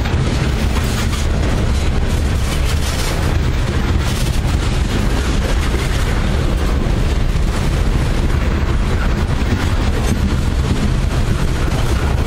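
Freight train boxcars rolling past at close range: a steady, loud low rumble of steel wheels on the rails, with light clatter from the cars.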